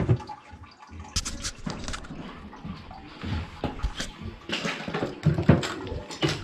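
Water sloshing and dripping in a sump pit, with irregular knocks of handling, as the float is pulled up by hand to test the pump and alarm.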